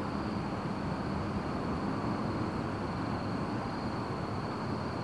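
Steady outdoor background noise at night: a low rumble and hiss with a faint hum and no distinct bangs. The distant fireworks make no audible report here.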